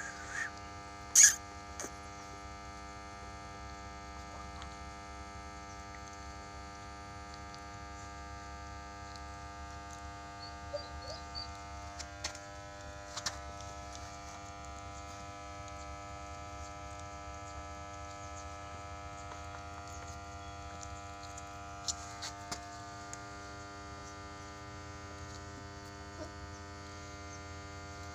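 A steady electrical hum made of many held tones, with a few short clicks and knocks scattered through it; the sharpest click comes about a second in.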